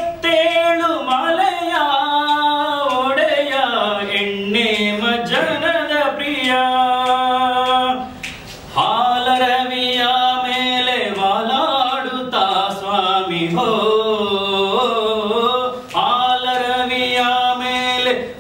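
A man singing a Kannada folk devotional song unaccompanied, in long held, wavering notes with no clear words. There is a short pause for breath about eight seconds in.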